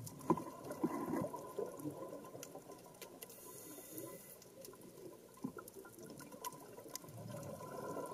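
Underwater sound from a scuba dive: scattered sharp clicks and crackle, with rushes of air and bubbles from the diver's regulator breathing, and a faint steady whine underneath.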